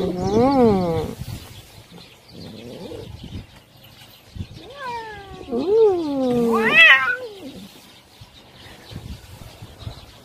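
Tortoiseshell-and-white cat meowing repeatedly: a meow at the start, a faint one a few seconds later, then three drawn-out meows in quick succession around the middle, the last one the loudest and highest.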